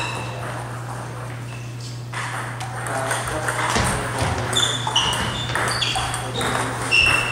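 Table tennis rally: the ball clicking off the bats and bouncing on the table in a quick run of sharp pings, starting about two seconds in, over a steady low hum.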